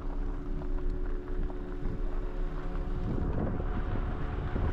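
Wind buffeting the microphone as a low rumble, with a gust picking up about three seconds in.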